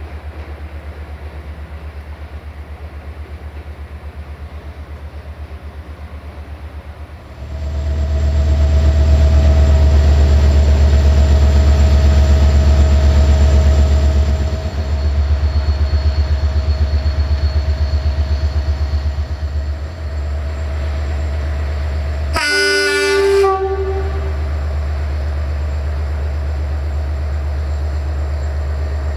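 Diesel locomotive engine running with a deep steady rumble that gets much louder about seven seconds in. About 22 seconds in, one short train-horn blast sounds over it.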